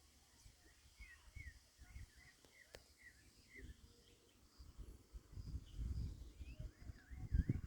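Small birds chirping, many short quick notes repeated throughout. A low rumbling noise underneath gets louder in the second half.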